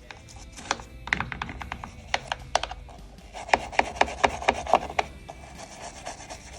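Hand-tool work on a washing machine's wiring: a run of sharp scraping clicks and rasps, with a quicker series of about five strong strokes about halfway through.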